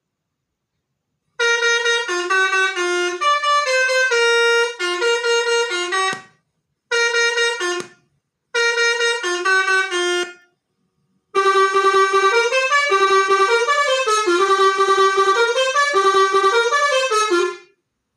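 Telolet horn module for a motorbike or car playing quick multi-note horn melodies in four phrases, the last and longest a rising and falling tune of about six seconds, with silence between phrases.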